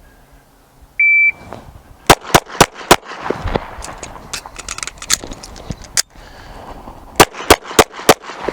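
A shot timer beeps once, about a second in, then a Smith & Wesson M&P 2.0 pistol fires four quick shots to slide lock. About three seconds of reload handling follows, ending in a sharp clack, then four more quick shots near the end. This is an empty-gun magazine change drill shot against the clock.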